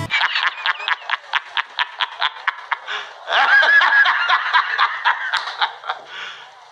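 A man's loud, hearty laughter from a film clip, tinny with no bass. It comes in rapid bursts about five a second, breaks into a long drawn-out laugh about three seconds in, and tails off in fainter bursts near the end.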